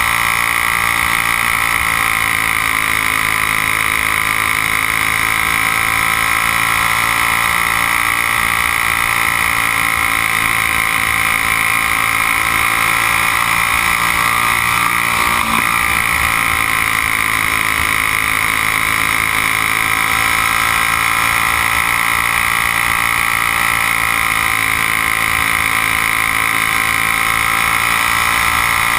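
Briggs & Stratton Raptor flathead kart engine running hard at high revs under racing load, heard onboard. Its pitch dips slightly and climbs back a few times as the kart goes through the turns of the oval.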